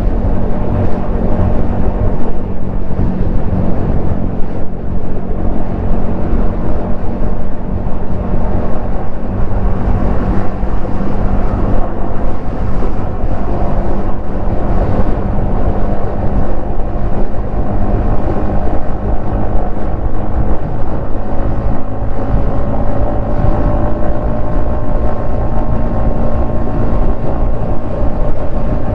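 Yamaha XSR155's single-cylinder engine running steadily at highway cruising speed, with wind rushing over the helmet-mounted microphone.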